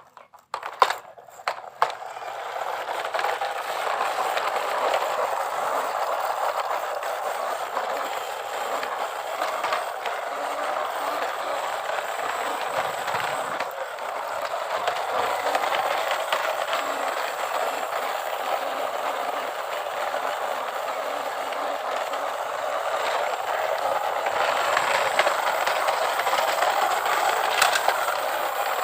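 Toy vehicle running with a steady mechanical rattle, after a few clicks at the start.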